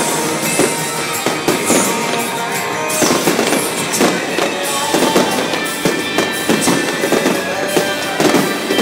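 Fireworks display: a steady run of bangs from bursting shells and fountains, about two a second, with music playing throughout.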